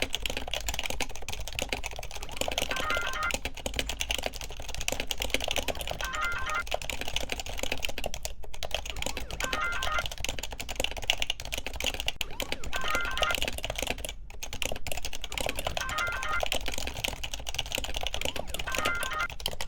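Dense, rapid mechanical clicking at a steady level, with a short chime-like tone pattern repeating about every three seconds.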